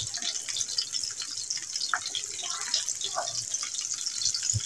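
Oil sizzling and crackling gently in a frying pan around bell pepper rings on a low flame, with a few soft sounds of a spoon pressing chicken mince filling into the rings.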